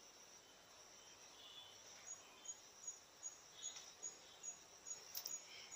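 Near silence, with a faint cricket chirping steadily from about two seconds in, at about two to three short high chirps a second.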